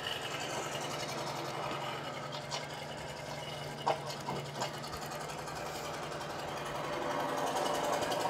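Small engine of a hydraulic rescue-tool power unit running steadily during a vehicle extrication, with a few sharp metallic clicks around the middle.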